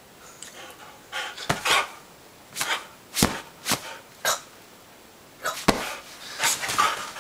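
A boxer puppy scrambling and bouncing on a couch: an irregular string of soft thumps and scuffles from its paws landing and pushing off the cushions, with a few deeper thuds among them.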